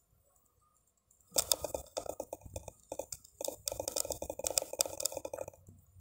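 Whiteboard eraser scrubbing back and forth across the board, a rapid scratchy rubbing that starts about a second in and stops shortly before the end.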